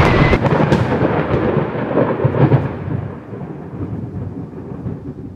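Rushing, rumbling wind noise on the camera microphone from a wingsuit flight, fading out gradually to nothing.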